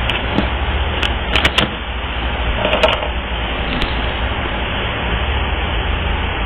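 Steady low rumbling hum with hiss, broken by a few light clicks about a second in and again near three seconds.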